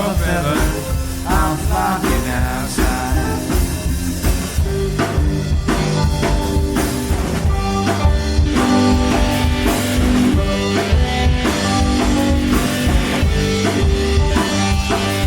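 Live rock band playing, with electric guitars, bass and a drum kit.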